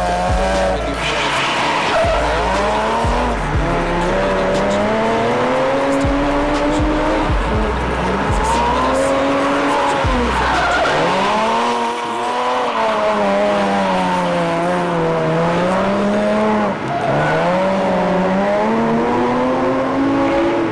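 BMW E36 drift car's engine revving up and falling back again and again through a drift, the revs swinging every second or two, with tyre squeal from the sliding rear wheels. Music plays underneath.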